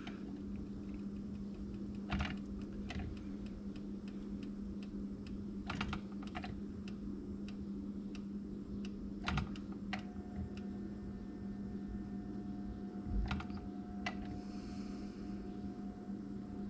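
Scattered light clicks and taps from a roundhead jig mold being shifted under the spout of a Lee Production Pot IV bottom-pour lead pot while molten lead is poured into the cavities, over a steady low hum.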